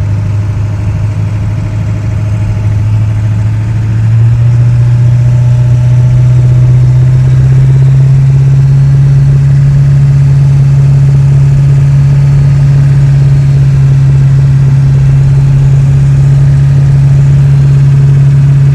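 2000 Ford Excursion's 7.3 L Powerstroke turbo-diesel V8 heard from inside the cab while driving: a loud, steady low exhaust drone. It steps up in pitch about four seconds in and again a few seconds later, then holds steady.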